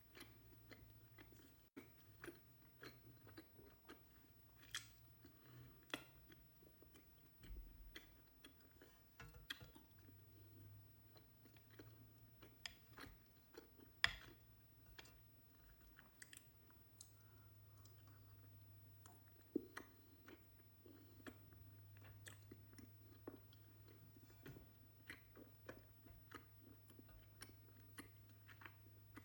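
Faint, close-up chewing of ice cream with chewy honey-filled rice cakes (kkul-tteok): scattered wet mouth clicks and smacks, one sharper click about halfway through, over a steady low hum.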